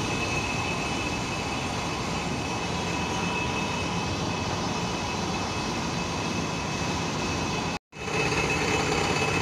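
Steady drone of a ship's onboard machinery, an even rumble with a faint high steady whine over it. It cuts out for an instant near the end and then resumes.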